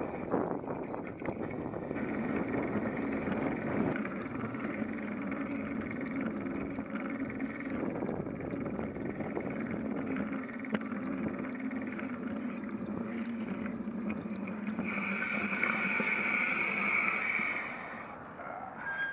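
Bicycle rolling along a concrete sidewalk, a steady rumble and rattle of the ride. A higher steady tone joins about 15 s in for a few seconds, and the noise dies down near the end as the bike slows to a stop.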